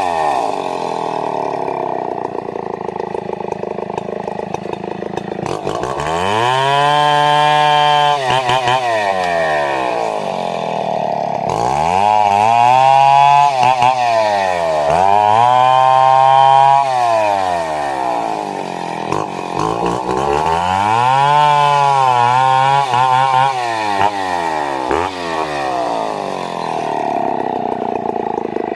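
Gas chainsaw engine revving up and dropping back about four times as it cuts wood, its pitch rising and falling with each pass.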